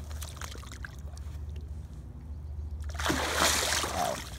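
Water splashing as a large northern pike is released by hand over the side of a boat and kicks away, one loud splash about three seconds in. A low steady hum runs underneath.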